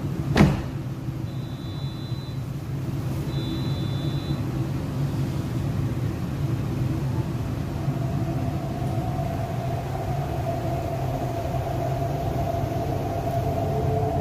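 MTR East Rail Line R-Train electric train: the passenger doors shut with a knock about half a second in, two short high beeps follow, then from about halfway the traction motors start a steady whine that begins to rise near the end as the train pulls out, over the low rumble of the car.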